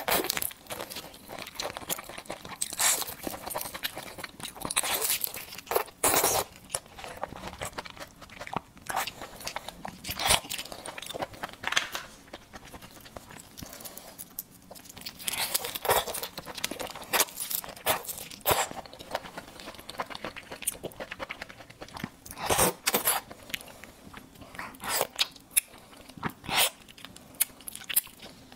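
Close-miked eating of whole cooked red shrimp: shells cracking and peeling, biting, crunching and chewing. It comes in irregular clusters of sharp crackles with quieter handling between.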